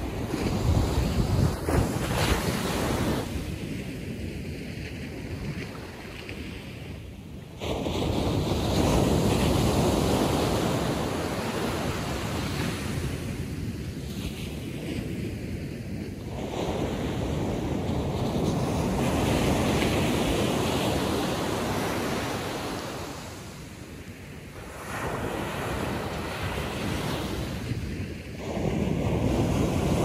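Atlantic Ocean surf: waves breaking and washing up the beach, the rush swelling loud and easing off again every several seconds.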